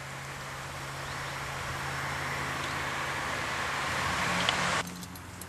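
A car passing on the road, its tyre noise swelling steadily louder before cutting off abruptly near the end.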